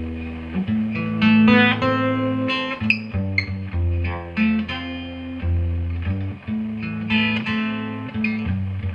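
Acoustic-electric guitar played through a guitar amplifier turned up full: strummed chords over deep, ringing low notes. The low E string now sounds through the amp, a sign that its under-saddle pickup is working again after the DIY repair.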